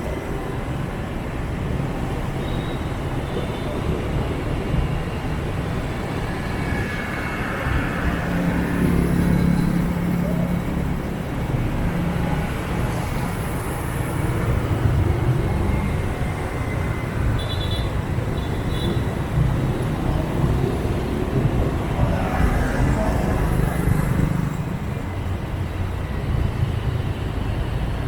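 City traffic heard from a moving motorbike: a steady rumble of engines and tyres, louder twice as vehicles come close, with a few short high beeps about two-thirds of the way through.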